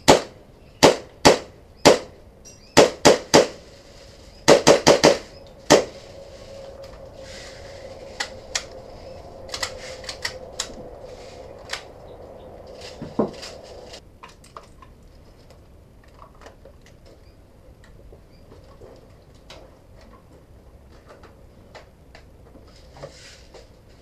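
A gas 1911-style airsoft pistol, a Nighthawk replica, firing about eleven sharp shots in the first six seconds, some singly and some in quick strings of three or four. After that there are only a faint steady tone and scattered light clicks and knocks.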